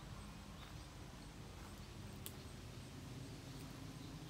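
Faint outdoor ambience: a low rumble of wind or handling on a walking camera's microphone, with soft footsteps on a dirt and pine-needle path and a single sharp click about two seconds in.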